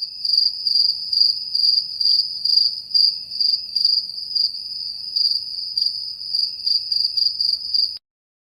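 Cricket chirping: a steady high trill with regular louder pulses, about two a second, that cuts off suddenly near the end.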